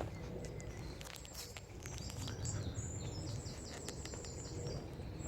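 Small bird singing a fast series of short, high, repeated chirps from about two seconds in, over a steady low rumble and a few faint clicks.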